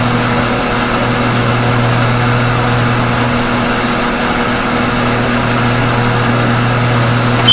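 A steady low mechanical hum over an even whooshing noise, unchanging throughout.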